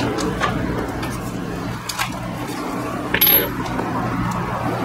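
Loose metal scooter parts being handled on a tile floor: a few light clicks, then one sharp, ringing metal clink about three seconds in.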